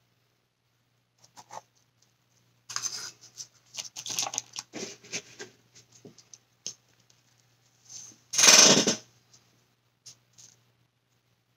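Small scratching and tapping handling noises from a wooden craft stick and paper cups of resin on a paper-covered worktable, clustered a few seconds in. About eight seconds in there is one louder, brief rush of noise.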